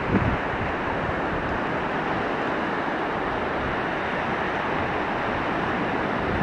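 Small Baltic Sea waves washing onto a sandy, stony shore in a steady rush, with a brief gust of wind buffeting the microphone just after the start.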